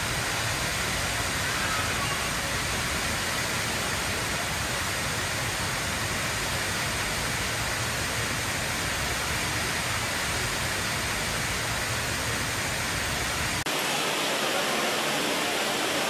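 Rain Vortex indoor waterfall at Jewel Changi Airport: a steady rush of water falling from the dome into its basin. About 13 seconds in the sound cuts abruptly to another waterfall's lighter hiss with far less low rumble.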